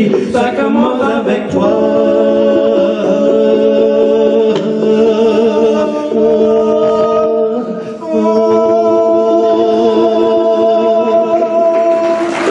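Two men singing a cappella in close harmony, holding long notes with vibrato. They break briefly about eight seconds in, then hold a new, higher chord.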